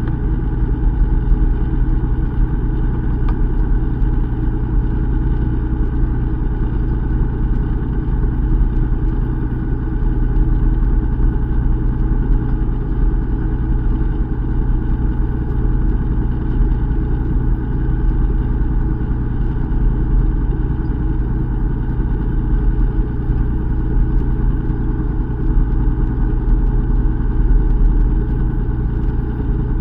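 Fishing boat's engine running steadily at a low, even hum.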